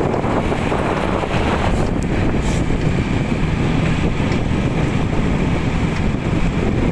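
Motorcycle running steadily while riding along a street, with heavy wind rumble on the microphone.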